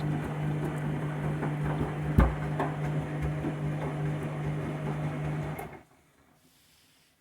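Candy washing machine turning its drum on the delicate main wash: a steady motor hum with light clattering and one loud knock about two seconds in. The motor stops suddenly near the end and the drum comes to rest, the pause between turns of a delicate wash.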